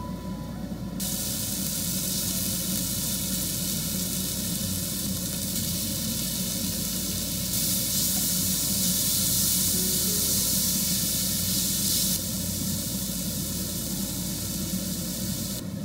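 Beef cubes and mango chunks sizzling in a hot frying pan as they are stir-fried. The sizzle starts about a second in and is loudest for a few seconds in the middle.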